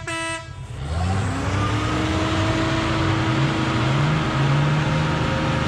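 Ural off-road truck's engine under load as the truck is hauled out of a sand pit on a tow strap. It comes in about a second in, then runs steadily and loud, its pitch climbing in steps toward the middle as it revs.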